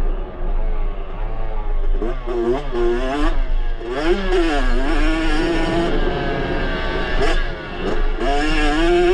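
2022 Yamaha YZ65's 65cc two-stroke single-cylinder engine being ridden hard, revving up and down with its pitch rising and falling again and again, and a short drop off the throttle about eight seconds in.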